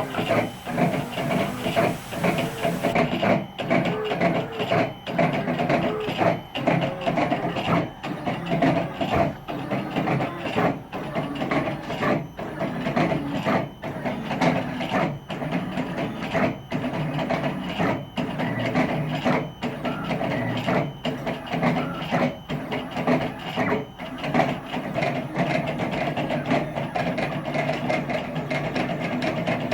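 Stepper motors of a DIY Sidewinder CNC router (400 oz-in bipolar steppers run at 4 amps from THB6064AH drivers) whining at shifting pitches as the axes dart back and forth, with brief stops about every second at changes of direction. The hard acceleration rattles the machine frame.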